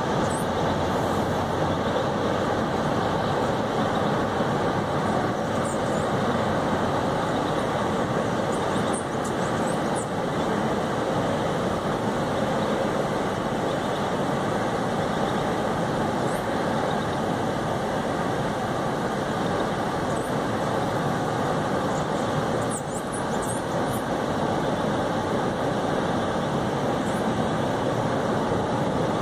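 Freight train's hopper wagons rolling across a high concrete viaduct: a steady, unbroken rumble of the passing cars, with a few faint high squeaks here and there.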